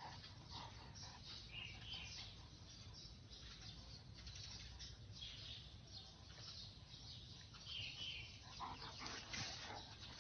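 Faint koi pond sounds: a crowd of koi splashing and slurping at the surface, with a few scattered bird chirps.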